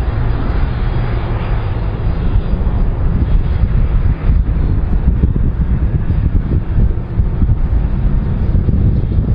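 Airbus A310's jet engines running as the airliner rolls along the runway: a steady, heavy rumble with wind buffeting the microphone.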